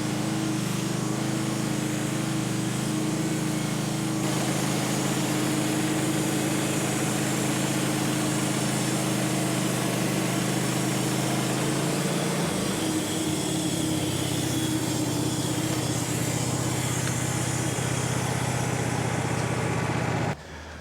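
Bandsaw sawmill's engine running at a steady speed, its pitch dropping slightly about twelve seconds in. It cuts off abruptly near the end.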